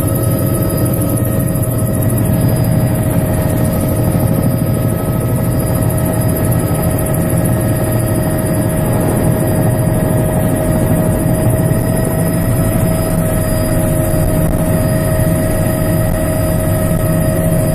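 Bell 206B3 JetRanger's Allison 250 turboshaft and rotor heard inside the cabin as the helicopter lifts off. A steady whine with several fixed tones runs over a low rotor drone.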